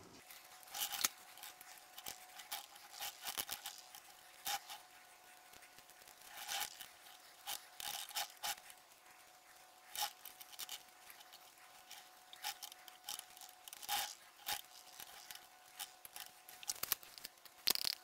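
Paint brush working thickened silicone rubber over a mould: faint, irregular scraping and dabbing strokes, some louder than others.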